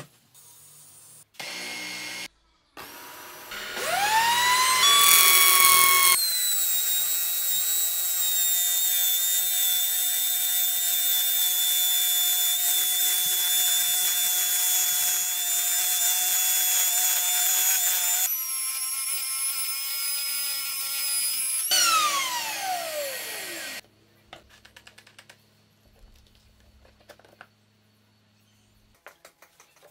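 Compact trim router spinning up with a rising whine, then running at a steady high whine as its bit cuts a slot into a round wooden dowel held in a jig. The motor winds down with a falling whine about 22 seconds in, leaving only a few faint handling clicks.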